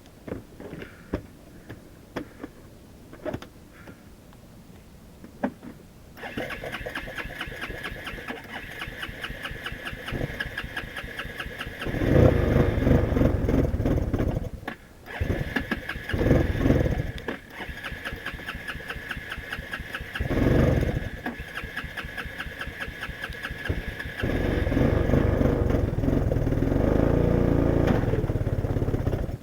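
An ATV engine, just pulled out of icy water, starts about six seconds in and then runs, revved up in several surges. The longest and loudest surge comes in the last five seconds. A few faint clicks come before it starts.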